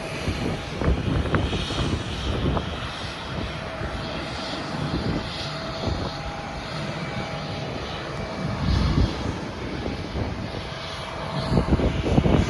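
Jet airliner engines running, a steady rushing noise with a faint, steady whine.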